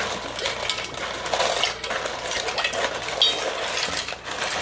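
Dry rigatoni poured into a pot, many small hard pieces clattering in a dense, rapid run.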